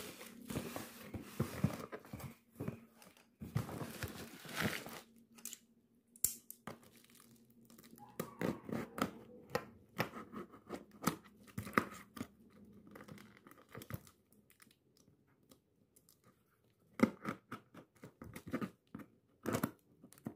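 Bubble wrap rustling and crinkling as it is pulled off a cardboard box, then scissors cutting into the cardboard: scattered sharp snips and short tearing runs, loudest about two thirds of the way through and again near the end.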